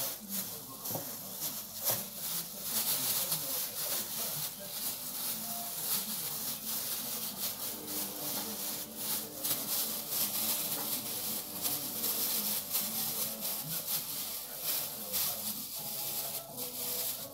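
Thin plastic food-prep gloves crinkling and rubbing as hands work and roll raw meat paste into meatballs, over a steady hiss.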